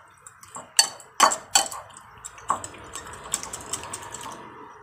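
Eggs being beaten into a chopped-vegetable and spice mixture in a glass bowl: a utensil clicks and clinks against the glass, with a few sharp strikes in the first second and a half, then quicker, lighter beating with a steady wet churning.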